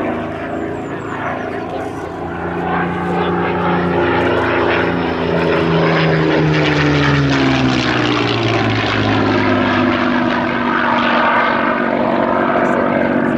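Supermarine Spitfire's Rolls-Royce Merlin V12 engine and propeller running in flight. The sound grows louder about three seconds in, then falls steadily in pitch as the aircraft passes.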